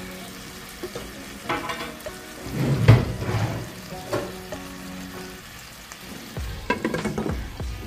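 Beef patties sizzling in a hot nonstick frying pan with a splash of water just added, the water and fat hissing and spitting as they boil off. The sizzle flares louder a few times, most strongly about three seconds in and again near the end.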